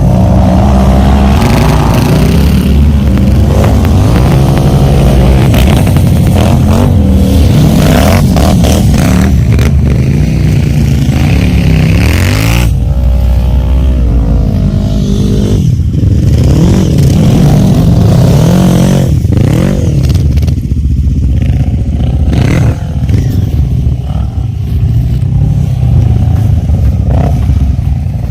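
Quad bike (ATV) engines running hard, the engine note rising and falling again and again with the throttle, with some clatter and scraping mixed in.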